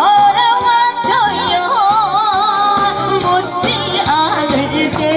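A woman singing long held notes with wide vibrato into a microphone, over an amplified backing track with a steady beat, through PA speakers.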